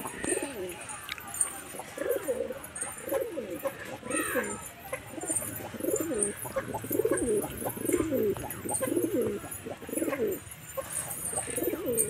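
A flock of domestic pigeons cooing, with many overlapping low, falling coos coming about once a second.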